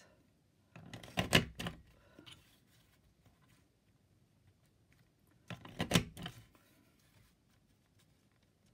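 Fiskars border punch pressed down twice on a paper strip, each press a short cluster of plastic clunks and paper crunching, about five seconds apart.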